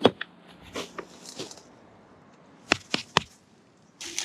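Litter being picked up and handled: a scatter of short, sharp clicks and knocks with quiet between, three of them close together a little under three seconds in.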